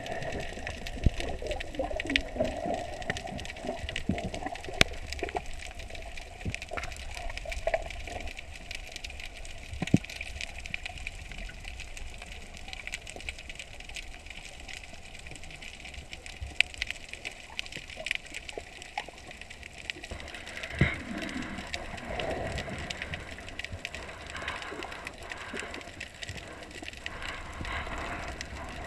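Underwater ambience heard through a submerged camera's housing: a steady, muffled wash of water noise with scattered sharp clicks and crackles. About two-thirds of the way through it turns busier and gurgling.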